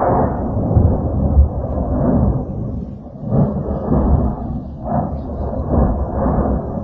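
Sudden deep boom from Popocatépetl volcano, followed by a rolling rumble that surges several times.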